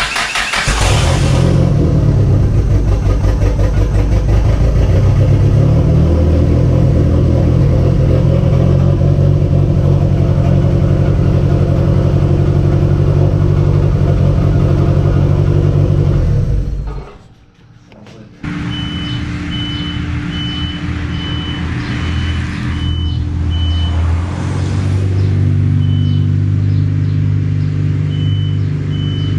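Chrysler Conquest's turbocharged G54B four-cylinder engine, just started, running steadily. About 17 seconds in the sound fades away, then the engine is heard running again, a little quieter, with a regular high-pitched beeping chime coming and going.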